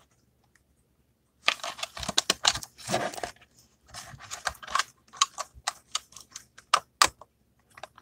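Small plastic packaging handled with long fingernails: a run of quick, irregular light clicks and crinkles that starts about a second and a half in.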